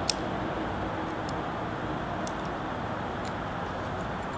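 A few faint, sharp clicks about a second apart as the parts of a folding knife, blade, pivot and handle, are pressed together by hand, over a steady hiss.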